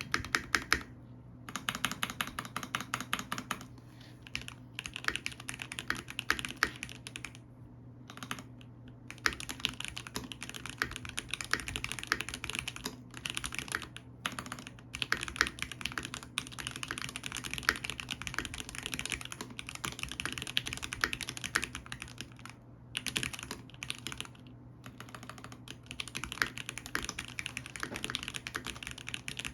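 Fast typing on a MelGeek MOJO 68 plastic-cased mechanical keyboard with Gateron Pro White linear switches: dense runs of keystrokes broken by several short pauses.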